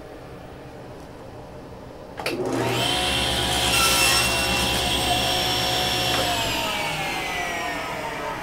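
Table saw switched on with a click about two seconds in, its motor and blade running up to a steady whine. About six seconds in it is switched off, and the whine falls steadily in pitch as the blade coasts down.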